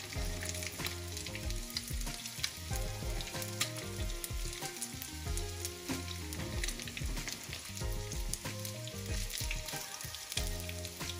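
Panko-breadcrumbed whiting fillets shallow-frying in hot oil in a frying pan, sizzling steadily with constant fine crackling. Soft background music plays under it.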